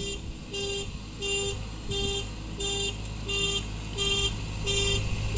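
JCB backhoe loader's reversing alarm beeping at a steady pace, about three beeps every two seconds, over the machine's diesel engine running.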